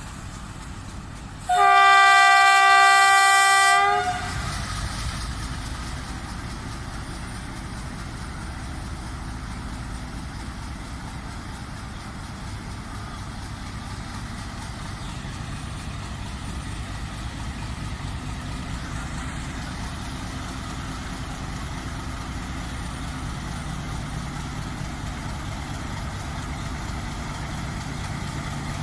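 Train horn sounding one blast of about two seconds, a little over a second in, followed by the steady low rumble of a train. A low engine hum joins near the end.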